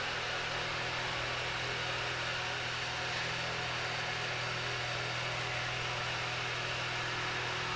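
Steady low hum under an even hiss, unchanging throughout, with no distinct events.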